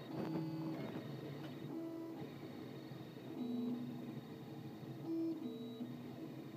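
Solidoodle 3D printer's stepper motors whining as the print head moves: short steady tones that jump to a new pitch every fraction of a second, over a low steady hiss.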